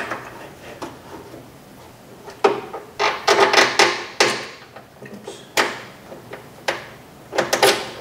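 A car door latch assembly clicking and clattering against the sheet metal inside a 1995 Honda Accord's rear door shell as it is worked into place by hand. Irregular sharp knocks and rattles come in bunches, starting about two and a half seconds in.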